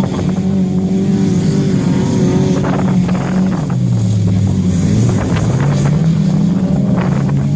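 Several standard-class autocross cars racing, their engines revving under load. The pitch dips about four seconds in and climbs again as they lift off and accelerate.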